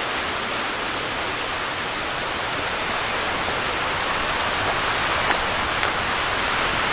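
Steady, even rush of Raymondskill Falls' water tumbling down the gorge below, with a few faint ticks in the middle.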